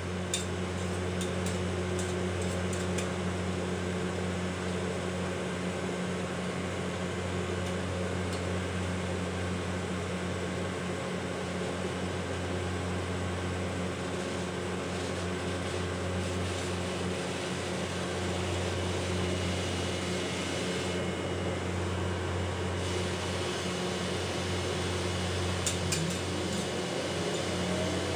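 Steady hum of refrigeration machinery at a rolled ice cream stall, with a few light taps and scrapes of metal spatulas on the cold plate in the first few seconds and again near the end.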